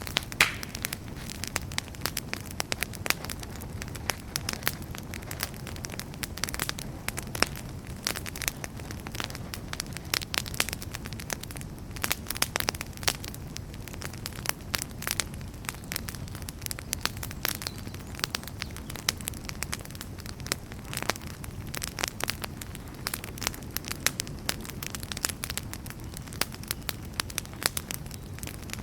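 Wood campfire crackling steadily, with frequent irregular sharp pops and snaps over a low, even background of burning.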